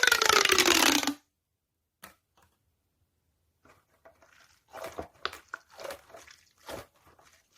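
A squishy toy being squeezed: air forced out with a loud hissing squeal that falls in pitch and cuts off about a second in. After a pause comes a run of soft crinkling, squishing handling sounds.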